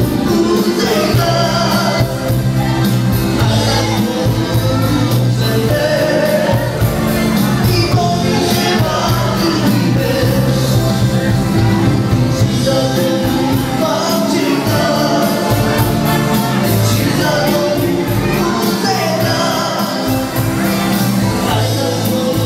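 Roma wedding band playing dance music with a singer over a steady beat, loud and unbroken.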